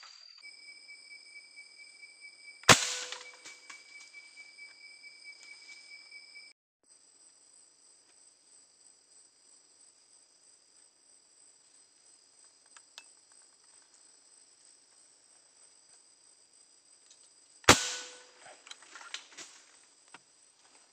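Two air-rifle shots, each a sharp crack with a short tail, about fifteen seconds apart, over steady high-pitched night-insect trilling.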